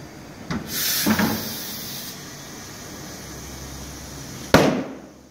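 Pneumatic tyre changer at work: a knock, then a short hiss of compressed air lasting about a second and a half, and a loud sharp clack near the end.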